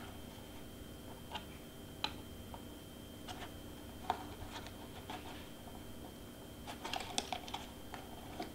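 Quiet, irregular small clicks and taps of mini LED bulbs and cardstock being handled and pressed into place by hand, busier about seven seconds in, over a faint steady hum.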